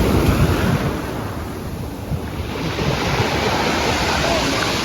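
Pacific Ocean surf washing in on a rocky beach, with wind buffeting the microphone. The wash is strongest in the first second, eases off, then builds again about three seconds in.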